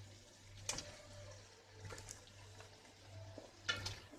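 Fried chicken pieces being added to the masala in a cooking pot: a utensil knocks against the pot twice, about a second in and near the end, the second louder, with light scraping between, over a low steady hum.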